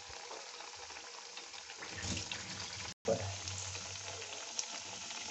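Besan-battered potato slices deep-frying in hot oil in a kadai, a steady sizzle with small crackles. The sound cuts out for an instant about three seconds in.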